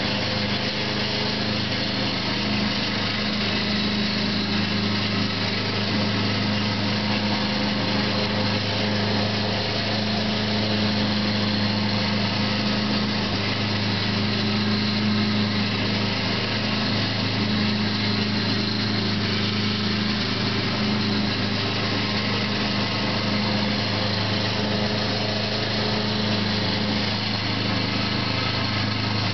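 Lawn mower engine running steadily while mowing and mulching leaves.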